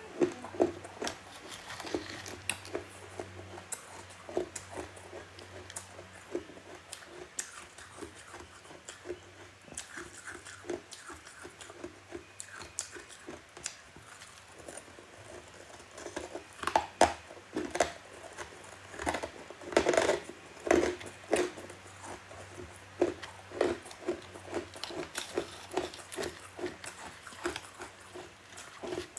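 Close-miked biting and chewing of soft, powdery freezer frost: a continuous run of short crunches, busiest and loudest a little past halfway.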